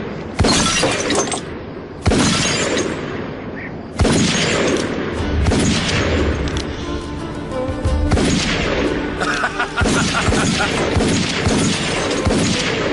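Revolver shots with glass bottles shattering, three sharp shots about two seconds apart, then more shots and breaking glass under background music.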